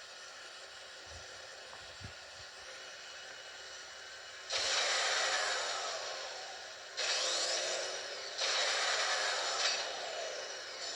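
Lego Technic 42140 remote-controlled car's electric motors running in bursts: a faint hiss, then loud whirring that starts abruptly about four and a half seconds in and again twice more, each burst with a whine that falls in pitch.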